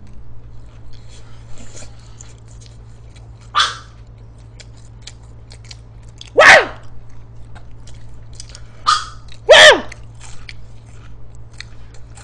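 A small pet dog barking four times at intervals, the second and fourth barks much louder, with faint chewing and eating sounds between them.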